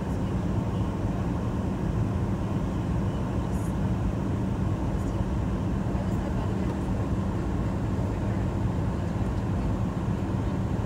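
Airliner cabin noise in flight: steady rumble and rush of the engines and airflow heard from inside the cabin, with a low, even hum.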